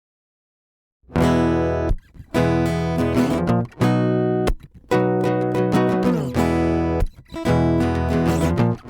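Music: strummed acoustic guitar chords in short phrases with brief gaps, starting about a second in.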